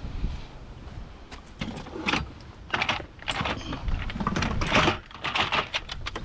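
Irregular clinks and clatter of hard objects being handled and knocked together, with a low rumble under them.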